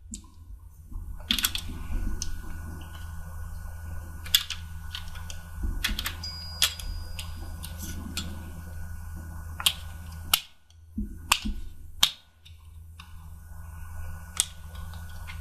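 Irregular sharp plastic clicks and snaps as a 3.5-inch hard drive is pressed into a tool-less plastic drive tray, its pins seating into the drive's screw holes, over a steady low hum.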